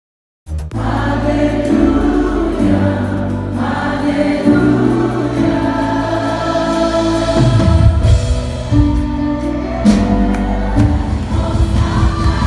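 Gospel praise-and-worship music: a band with a steady bass line and a large group of voices singing together. It cuts in suddenly about half a second in.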